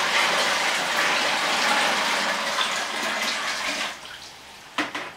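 Water pouring into a 30-litre bucket in a steady gush that stops about four seconds in, followed by a short knock near the end.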